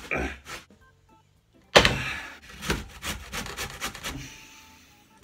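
Hard root vegetables being shredded by hand on a grater: a run of irregular rasping strokes that starts abruptly about two seconds in and fades out near the end.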